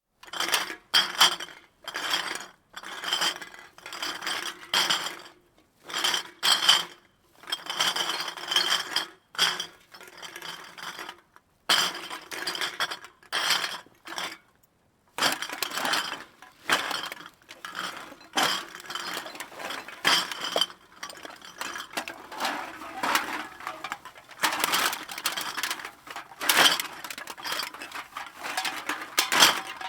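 Empty glass bottles clinking and knocking together, heard from a distance, in irregular clusters of rattling clinks with a ringing note, broken by short pauses every few seconds.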